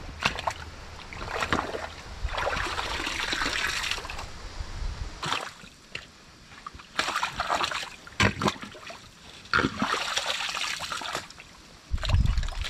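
Groundwater splashing and sloshing in a flooded trench dug in wet clay, stirred up in several bursts a second or two long. The trench has filled with water from the high water table.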